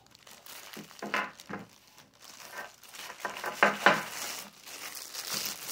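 Clear plastic packaging crinkling and rustling as it is worked off a rope cable attachment by hand, in irregular crackles that are loudest about four seconds in.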